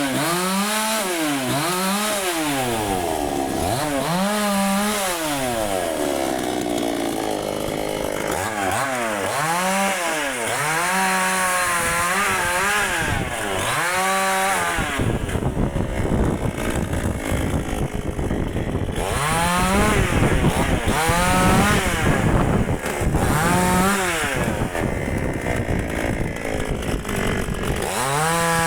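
Dnipro-M two-stroke petrol chainsaw, its engine revved up and let back down over and over in the first half. About halfway through the note gives way to a rough, noisy sound as the saw runs under load cutting walnut wood, with brief revs coming through now and then.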